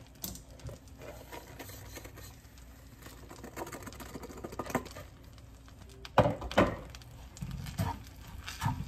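Crushed graham cracker crumbs poured from a plastic food-processor bowl into a frying pan of melted butter, a soft pattering rustle. Then several louder knocks about six seconds in and near the end as a wooden spatula stirs the crumbs against the pan.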